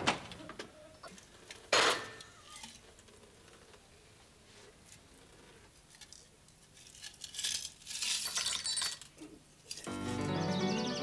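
Two sharp knocks, then a stretch of light clinking and rattling of small hard objects about seven to nine seconds in. A music sting starts about ten seconds in.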